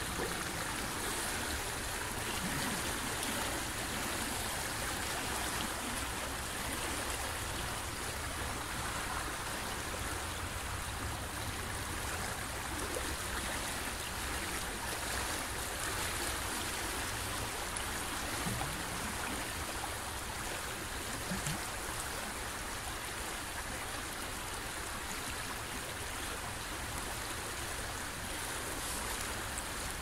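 Fast-flowing river water, a steady, even rush with no breaks.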